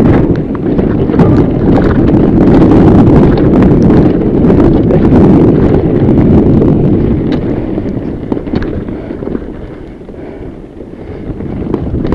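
Wind buffeting the action-camera microphone while riding a fat bike over rough trail, with scattered clicks and knocks from the bike rattling over the ground. The rush is loudest in the first half, eases about eight seconds in and picks up again near the end.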